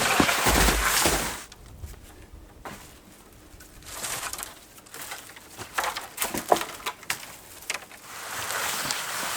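Footsteps crunching through forest litter and a few sharp snaps and cracks of dry sticks being gathered. The rustling is loud at the start, quiet in the middle and picks up again near the end.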